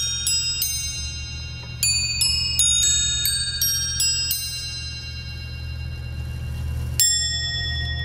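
A Kieninger clock's chime: steel hammers strike a stack of nested chrome bowl bells in a quick melody of about three notes a second, with a short pause about a second in. The notes then ring out, and a single strike about seven seconds in starts a new ring.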